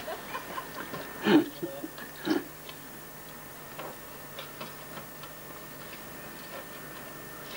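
Faint, irregular light ticks and clicks, with two louder short knocks in the first two and a half seconds, over a faint steady hum.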